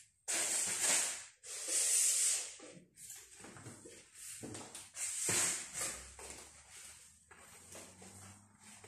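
A string mop swishing back and forth over a ceramic tile floor in a run of strokes, each about half a second to a second long, loud at first and fainter in the last few seconds.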